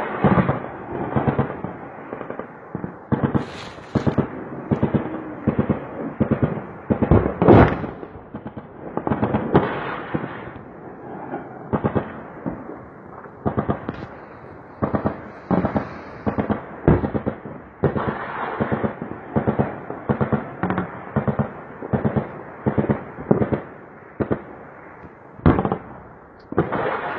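Distant gunfire and explosions of a bombardment, an almost unbroken series of sharp echoing bangs, one to several a second, with one louder blast about seven seconds in.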